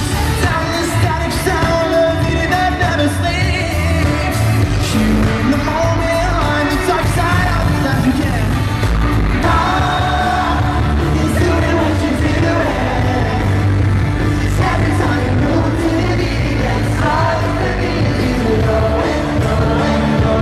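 A pop-rock band playing live through an arena PA, with lead vocals over electric guitar, bass and drums, loud and steady. Fans close to the phone are singing and shouting along.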